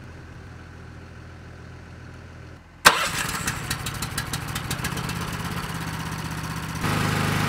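A low steady engine hum, then, about three seconds in, a small gasoline engine driving a fertilizer transfer pump starts running loudly close by, with rapid firing. Near the end its speed steps up as the throttle is opened.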